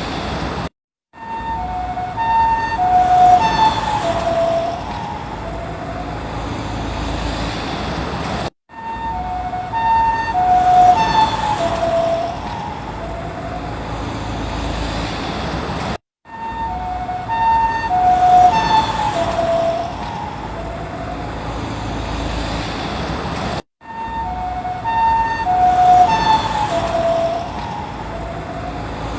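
Ambulance two-tone siren passing by: alternating high and low notes swell, drop slightly in pitch as it goes past (the Doppler effect), then fade into steady road noise. The same drive-by repeats four times, with a brief cut to silence between passes.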